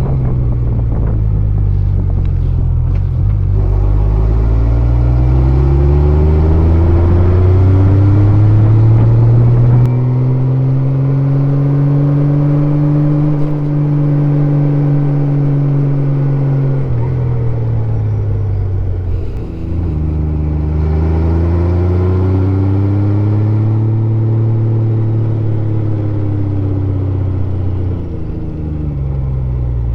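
Honda Gold Wing 1500's flat-six engine running under way, its pitch rising for about ten seconds and then falling off, dipping briefly about two-thirds of the way through before rising and falling once more.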